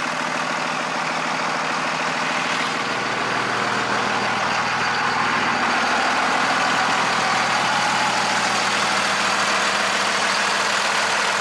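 Truck engine idling steadily at an even pitch and level.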